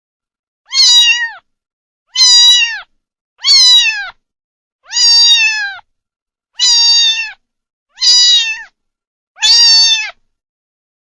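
Kitten meowing: seven high-pitched meows, each under a second long, evenly spaced about a second and a half apart, each dropping slightly in pitch at the end.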